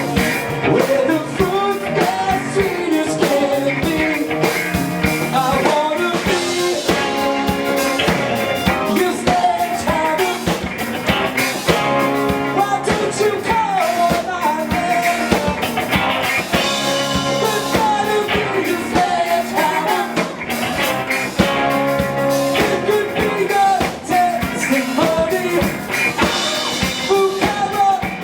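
Live rock band playing a cover song: lead vocals sung over drum kit, bass and guitar, with steady loud playing throughout.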